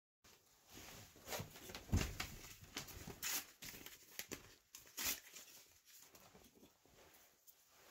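Quiet crackling and popping of a wood campfire, with irregular sharp snaps, the loudest about two seconds in.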